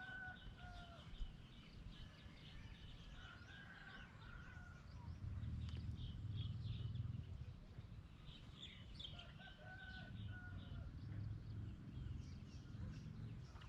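Domestic chickens calling, with drawn-out crow-like calls near the start, about four seconds in and about nine seconds in, over fast repeated high chirping. A low rumble rises for a couple of seconds midway.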